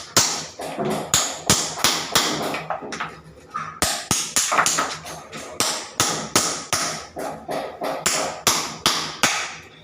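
Hammer blows struck in a steady run, about three a second, each with a short ringing tail. They pause briefly about three seconds in and then resume.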